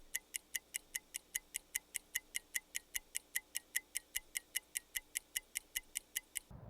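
Rapid, perfectly even ticking of a timer, about five ticks a second, each tick short and bright; it stops suddenly near the end, and a low rumble comes in just after.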